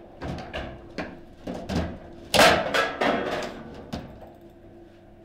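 Table football game in play: a quick string of sharp clacks as the ball and the players on the rods knock against each other, about ten in all, the loudest a little over halfway through, fewer and quieter near the end.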